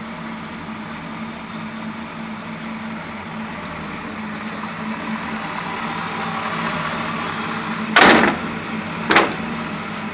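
Ford 351 V8, swapped into a 1949 Ford truck, idling steadily. Two brief, loud bursts of noise come near the end, about a second apart.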